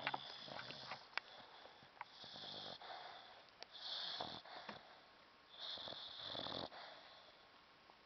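A sleeping dog snoring: four snoring breaths about every second and a half, the last the longest, with a few sharp clicks in the first second.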